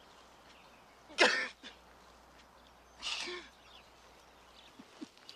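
Two short, harsh pained gasps from a person, about two seconds apart, the first the louder.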